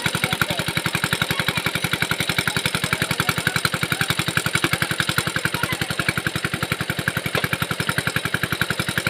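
A small engine running steadily at a constant speed, with an even, fast thumping of about ten beats a second.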